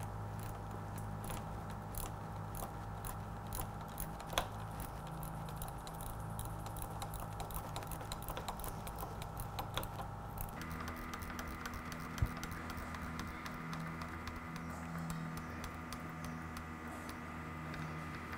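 Faint, irregular small clicks and ticks of hands and a tool loosening the nut under the clutch lever pivot pin, over a steady room hum. The hum changes abruptly a little past halfway.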